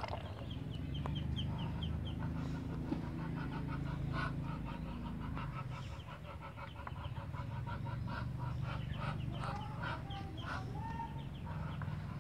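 Chickens clucking in quick, repeated short calls, with a steady low hum underneath.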